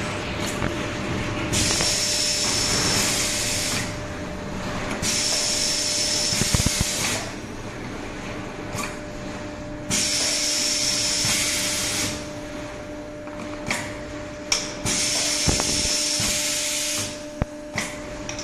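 Pneumatic aerosol filling machine cycling: four hisses of compressed air, each about two seconds long, with clicks and metal knocks between them over a steady hum.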